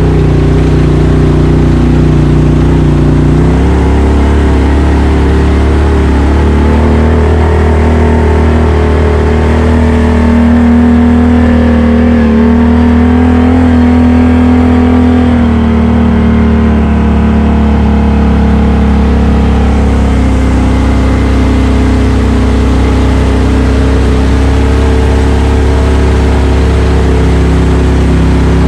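ATV engine running steadily under throttle through mud and water, its pitch rising and falling slightly with the throttle.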